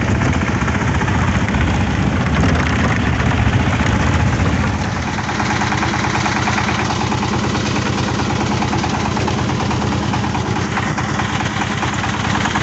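Tramontini micro tractor's single-cylinder diesel engine running with a steady rapid beat; it eases off slightly about five seconds in.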